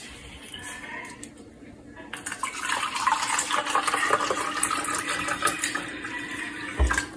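Water poured in a stream into a plastic measuring cup for about five seconds, with a thump near the end as something is set down.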